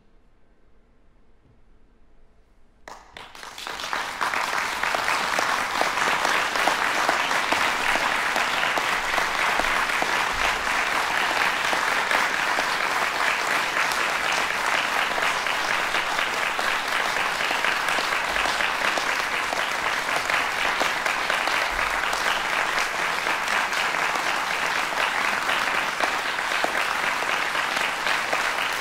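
Audience applauding, bursting in suddenly about three seconds in after a brief hush and then going on steadily.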